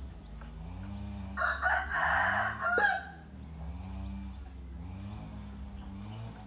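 A rooster crows once, about a second and a half in, a single call lasting about a second and a half. Under it a fainter low sound swells and fades about once a second.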